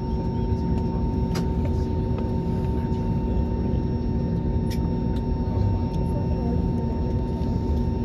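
Steady drone of a jet airliner heard from inside the passenger cabin, with several constant hums over the rumble. A few faint clicks come through it.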